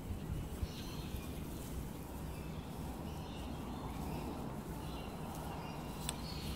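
Outdoor background: a steady low rumble with faint, scattered bird chirps, and a single sharp click near the end.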